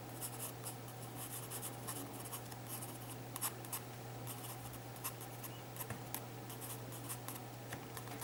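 Graphite pencil sketching on sketchbook paper: quick, irregular scratchy strokes, with a steady low hum underneath.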